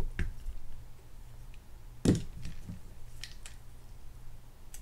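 Small clicks and taps of hand tools and the disassembled fishing reel's frame being handled, with a louder knock about two seconds in, over a low steady hum.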